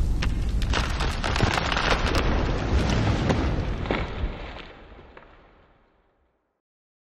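Intro sound effect for an animated logo reveal: a rumbling, crackling noise with scattered sharp clicks, fading steadily and gone about five seconds in.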